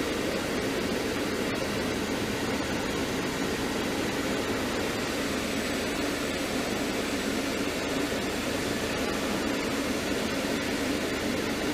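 Steady rush of air from the climate-control blower running in a 2002 Mercedes-Benz C230 (W203), with no clicking from the newly replaced HVAC stepper motor, which is now working.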